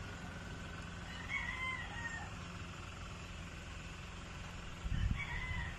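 A rooster crowing twice, once about a second in and again near the end. A brief low thump comes just before the second crow.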